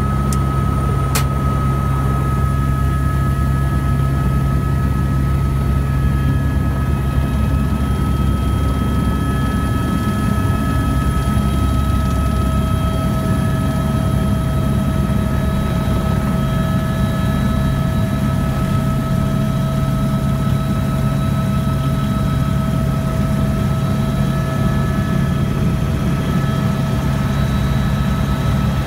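Helicopter engine and rotor heard from inside the cockpit, running steadily through lift-off and flight: a heavy low drone under a steady high-pitched whine. A single sharp click comes about a second in.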